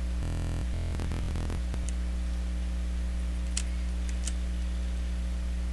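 Steady electrical mains hum from the recording setup, with a few faint clicks.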